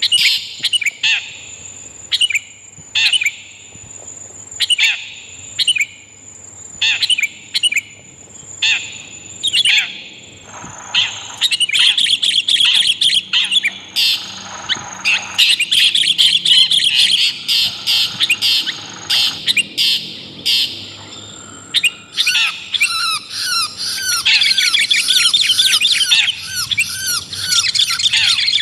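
Bird-lure recording of long-tailed shrike (cendet) calls mixed with sooty-headed bulbul (kutilang) calls. Short sharp call notes come about once a second over a thin steady high tone. From about ten seconds in, the calls become a dense, rapid chatter.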